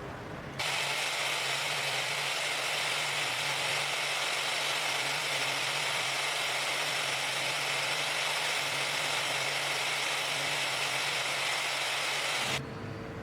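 A power tool running steadily with a hissing, whirring noise and a low hum. It starts abruptly about half a second in and stops abruptly near the end.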